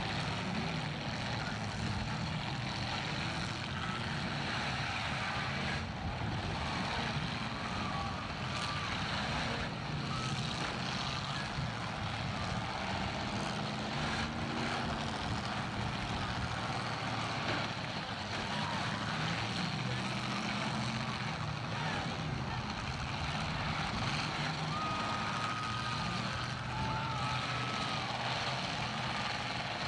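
Several demolition derby cars' engines running and revving together in a pack, with the odd faint knock of a collision.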